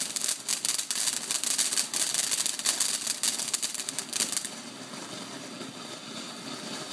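Ground fountain firework spraying sparks with a fast, dense crackle of popping stars for about four and a half seconds, then settling into a quieter, steady hiss.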